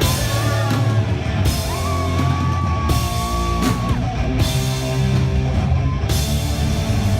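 Live rock band playing loud: electric guitar, bass and drum kit with repeated cymbal crashes, with one long held note about two seconds in.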